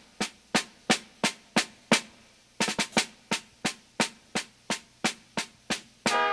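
Music: a drum struck in a steady beat, about three hits a second, with a quick flurry of hits partway through. Near the end a held chord of sustained instrument notes comes in.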